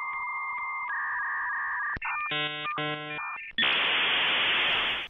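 Electronic intro sounds: steady synthesizer tones that step up in pitch about a second in, two short buzzy chords a little after two seconds, then loud static hiss for the last second and a half that cuts off abruptly.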